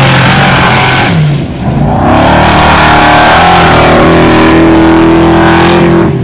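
Formula Offroad buggy's V8 engine at full throttle, very loud. It lets off briefly about a second and a half in, revs hard again, and drops away abruptly near the end.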